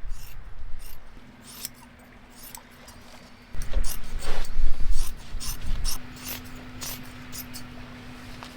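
Scissors snipping through fiberglass cloth in a series of short, sharp cuts. A steady low hum runs under them from about a second in, and a loud low rumble comes in about three and a half seconds in and lasts a couple of seconds.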